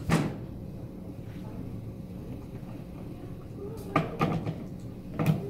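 Knocks and bangs from a toddler handling a wooden toy kitchen: its cabinet door and a plastic bowl at the toy sink. There is one sharp bang just after the start, several quick knocks about four seconds in, and one more near the end.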